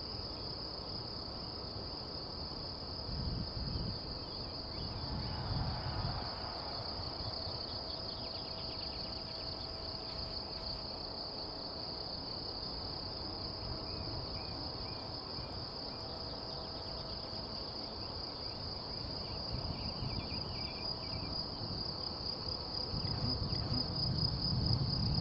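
A steady, high-pitched chorus of insects chirring without a break. Gusts of wind rumble on the microphone a few seconds in and again near the end.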